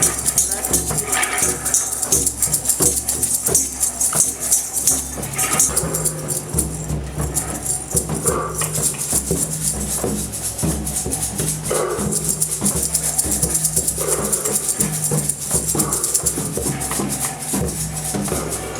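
Music with a fast, steady shaker or rattle rhythm over a low sustained tone.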